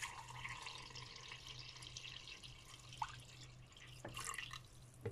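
Water poured from a plastic jug into a large pot, splashing and trickling over lidded glass jars on a kitchen towel. The pour thins out near the end, with a couple of small clicks.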